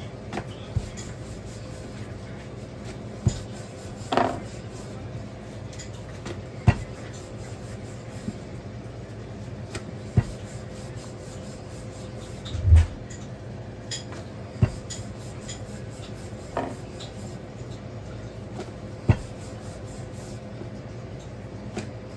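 Wooden rolling pin rolling out a potato-stuffed paratha on a granite countertop: soft rubbing of the pin over the floured dough, with about ten sharp knocks spread through. A steady low hum runs underneath.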